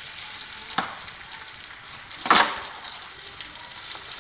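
Eggs frying in oil in a pan, sizzling and crackling steadily, with two sharper cracks, the second and louder one a little past halfway.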